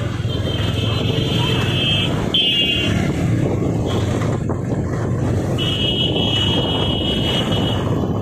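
Motorcycle riding through town traffic: steady engine, tyre and wind rumble. A high electric buzz comes and goes three times over it.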